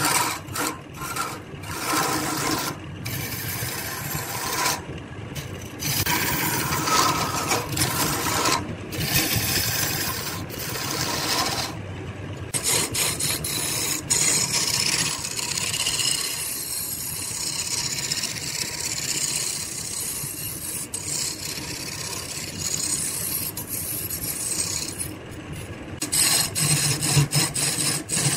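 A turning chisel cuts into a spinning wood blank on a lathe, making a rough scraping hiss of wood being shaved away. In the first part it breaks off briefly again and again as the tool is lifted and set back. It eases to a steadier, lighter scrape in the middle and grows stronger and choppier again near the end.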